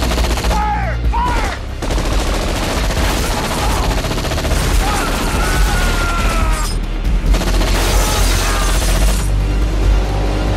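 Sustained rapid submachine-gun fire in a film action scene, laid over the score music; the firing stops abruptly about nine seconds in.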